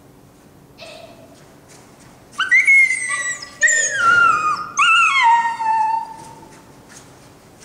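A small dog giving high-pitched whining yelps: three drawn-out cries that each slide down in pitch, starting a little over two seconds in and ending about two seconds before the end.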